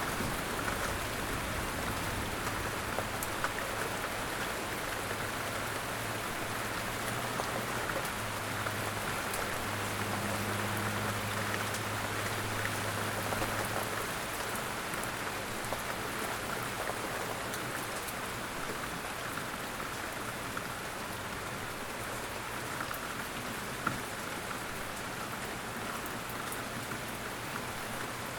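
Steady rain falling outdoors, a constant patter with individual drops ticking on surfaces. A faint low hum comes and goes in the first half.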